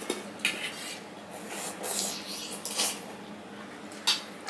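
Fingers working rice on a stainless steel plate and a steel spoon scraping in a steel bowl: rasping, rubbing scrapes with a few short clicks, the sharpest about four seconds in.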